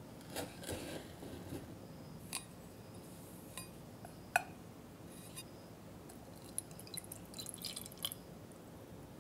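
A knife blade scrapes the seeds out of a split vanilla pod on a wooden cutting board. A few small clicks follow, with one sharp clink as the pod goes into a ceramic pot, then a soft crackle of milk or cream being poured into the pot near the end.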